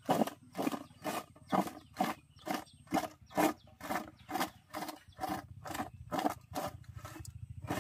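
Green mango pieces tossed and turned by hand in a steel plate with salt and turmeric, a regular clatter and rustle about twice a second.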